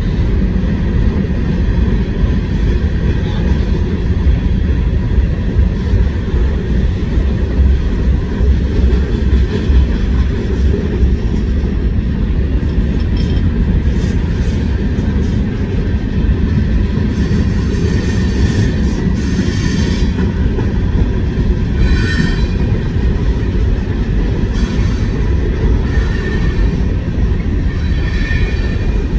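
CSX freight train rolling past, a steady heavy rumble of wheels on rail, with a few short high wheel squeals in the second half.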